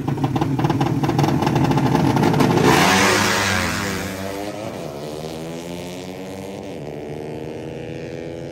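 Two drag-racing motorcycles revving hard at the start line with a rapid, choppy stutter, then launching. About three seconds in comes a loud rush as they pass close, after which the engine notes drop and then climb again in steps as the bikes shift up and pull away down the strip.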